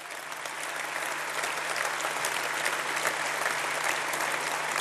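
Large audience applauding, the clapping swelling over the first couple of seconds and then holding steady.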